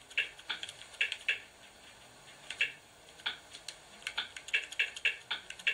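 A run of about a dozen soft, irregular clicks as letters are picked one by one on a TV's on-screen keyboard with a game controller, with a short pause about two seconds in.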